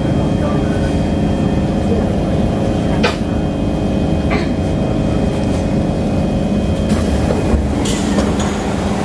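Interior of a Kawasaki C151 metro train at a station stop: a steady low rumble with the whine of the onboard equipment. There are two sharp clicks about three and four and a half seconds in. The whine stops about seven seconds in and is followed by a brief hiss.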